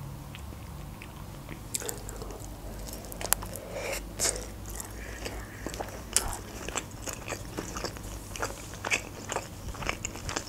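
Close-miked chewing of a mouthful of cucumber-wrapped sushi roll: a dense, irregular run of crisp wet clicks that starts about two seconds in.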